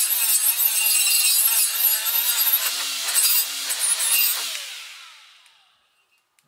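Small cordless right-angle tool spinning a 3M Roloc bristle disc at low speed against an aluminum engine case, scrubbing off stubborn leftover gasket material. Its whine wavers as it is moved around, then about four seconds in it is released and winds down to a stop.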